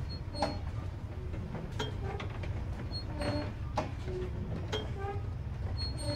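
Fairground carousel turning: a steady low rumble with irregular clicks and short squeaky creaks scattered over it.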